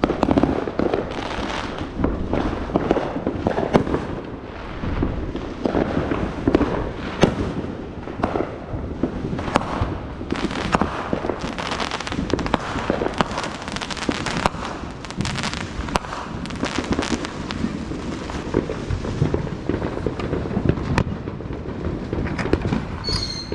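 Fireworks going off continuously: many overlapping bangs and crackling pops, with a short high rising whistle near the end.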